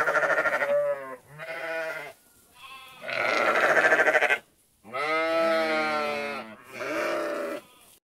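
Several sheep bleating one after another: about six quavering calls of differing pitch, three of them long and drawn out, with the sound cutting off abruptly near the end.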